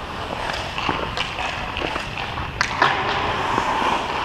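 Hockey skate blades scraping and gliding on rink ice, with scattered knocks of sticks and pucks and one sharper crack about two and a half seconds in.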